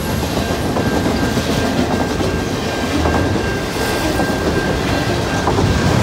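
Double-stack container cars of a CN freight train rolling past close by: a steady rumble and clatter of steel wheels on the rails.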